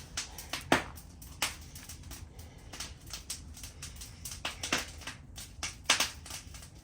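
Scattered sharp metallic clicks and knocks of hand tools and engine parts being handled, the loudest about a second in and again near six seconds.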